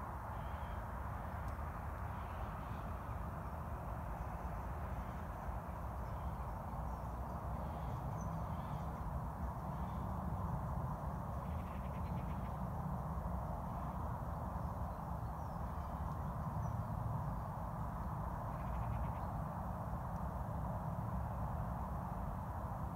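Faint birds calling here and there, including a couple of harsher crow-like calls midway and near the end, over a steady low rumble and hiss of open countryside ambience.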